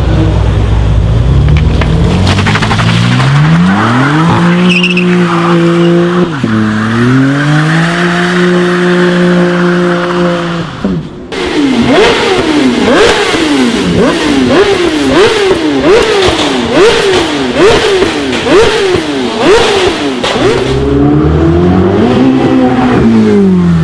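A modified car's engine revving up and held at high revs for several seconds, then cut suddenly. It is then revved again and again in quick succession, about one and a half revs a second, with sharp pops. Near the end it is revved up and falls back once more.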